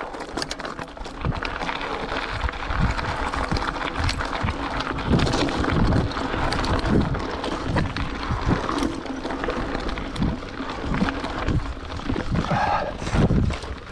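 Mountain bike being ridden along a rough cross-country trail: a steady rushing noise with irregular thumps and rattles as the bike jolts over the ground.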